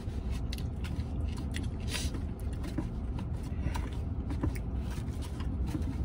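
A fork clicking and scraping in a takeout salad container, with chewing, over a steady low rumble.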